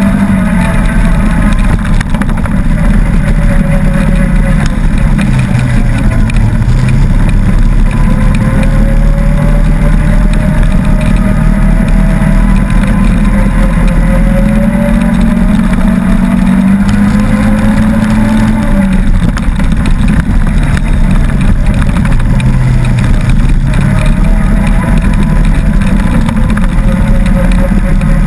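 Off-road vehicle's engine running under way on a dirt trail, its pitch rising and falling several times as it speeds up and eases off, over steady wind and tyre noise.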